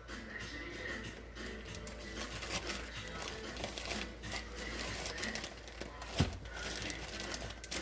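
Crinkling and scraping as dark brown sugar is scooped from its bag into a measuring cup, with one sharp knock about six seconds in.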